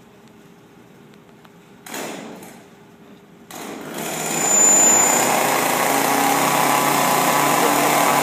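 Small two-stroke chainsaw being pull-started: two short bursts, then it catches about three and a half seconds in and runs loudly and steadily.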